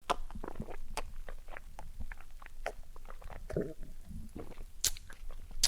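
Drunk person's wet mouth noises: irregular lip smacking and chewing-like clicks, with a brief low vocal sound about three and a half seconds in.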